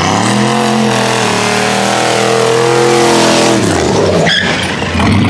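Turbocharged 4.8-litre LS V8 of a Chevy 1500 pickup revved up and held at high revs while the rear tyres spin in a burnout. The revs fall about four seconds in, with a short burst of noise, then the engine picks up again.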